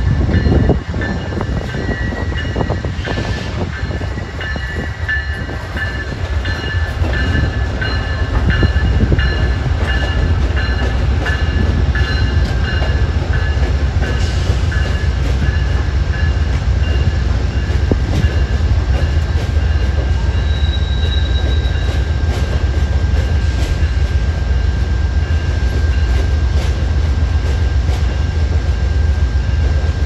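Amtrak Northeast Regional train hauled by an ACS-64 electric locomotive rolling slowly past. It makes a steady low rumble with scattered wheel clicks and high, thin squealing tones.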